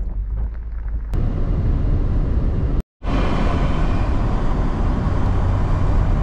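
Steady road and engine noise of a 2008 Volvo XC90 driving, heard from inside the car. The sound cuts out abruptly for a moment just before three seconds in.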